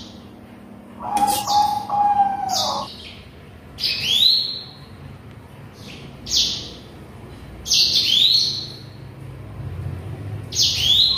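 A bird chirping repeatedly, each call a quick rising sweep up to a high held note, coming about every one to two seconds.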